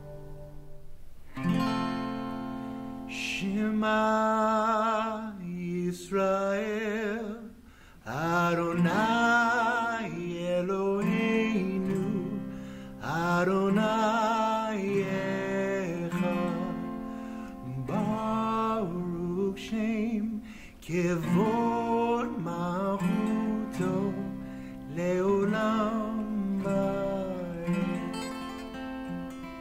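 A voice singing a slow melody in long held phrases with vibrato, accompanied by acoustic guitar.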